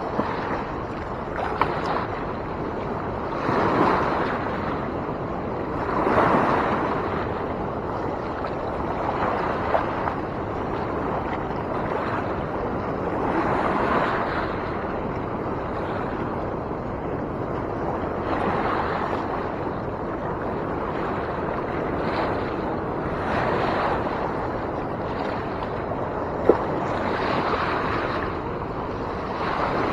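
Fast-moving river water rushing steadily, swelling every few seconds, with wind on the microphone and a few sharp clicks.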